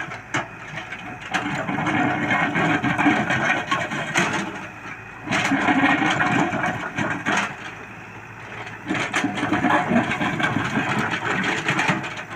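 Komatsu hydraulic excavator working, its engine swelling under load and easing off several times, with scattered knocks and scraping.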